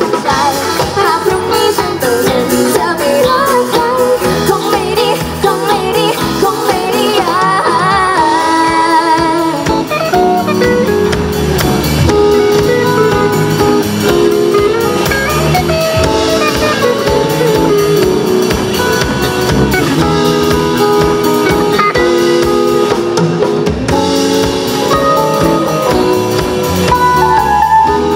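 Live band playing a pop song, with drum kit and guitar.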